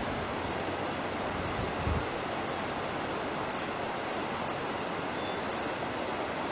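Forest ambience: a steady hiss with a regular high-pitched chirp repeating about twice a second, alternating between two pitches.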